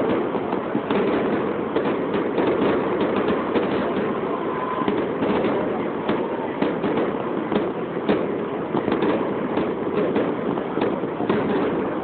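Fireworks display: aerial shells bursting in quick succession, a steady barrage of overlapping bangs and rapid irregular pops with no break.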